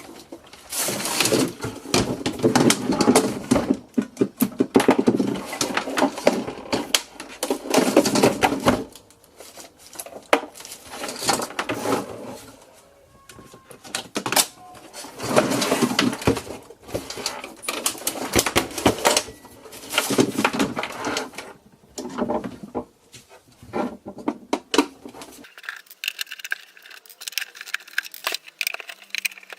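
A plastic clock radio being taken apart by hand: bursts of clicking, knocking and rattling from the plastic casing and its screws and parts, in spells of a few seconds with short pauses between.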